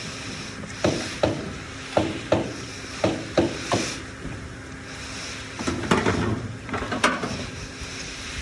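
A run of sharp knocks, about seven in the first four seconds and then a quick cluster a couple of seconds later, over a steady low hum.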